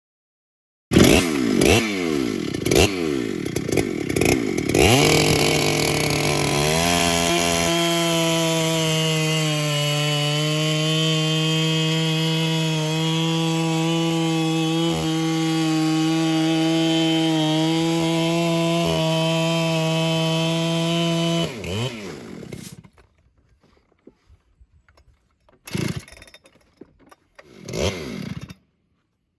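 Electric chainsaw ripping a log lengthwise in a chainsaw mill jig. It starts with a few seconds of uneven revving, then settles into a steady high whine under load, dipping slightly now and then. It winds down about 22 seconds in, followed by a few faint knocks.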